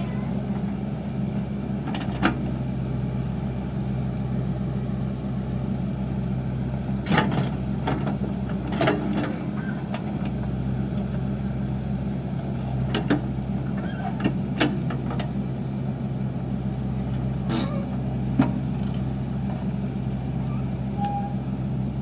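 Backhoe loader's diesel engine running steadily as it digs a trench, with sharp clanks and knocks from the bucket and boom every few seconds.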